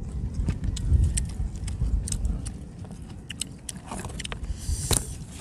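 Wind rumbling on the microphone, with close, crisp clicks of grilled squid being chewed and handled right by it. A short hiss comes about five seconds in.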